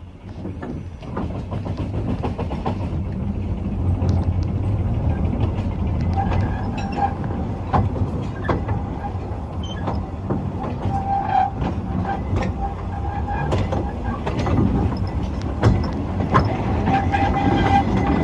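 Narrow-gauge train hauled by a Hunslet 50hp 0-4-0 diesel locomotive running along the track. There is a steady low rumble with irregular wheel clicks and knocks over the rails, and a thin squeal that comes and goes. It grows louder over the first couple of seconds as the train gets under way.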